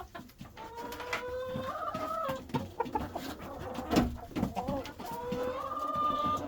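Chickens clucking, with a long drawn-out call about a second in and another near the end. A single sharp knock about four seconds in.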